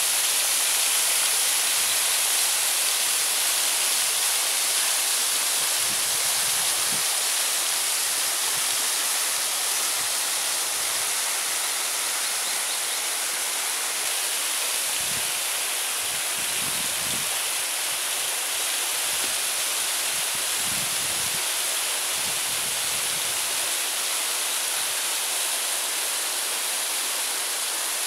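Waterfall pouring down a vertical rock face: a steady, bright hiss of falling water that never lets up.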